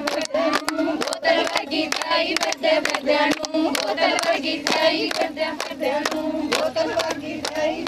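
A group of women singing Punjabi boliyan together over brisk, steady, rhythmic hand-clapping, the beat for a giddha dance.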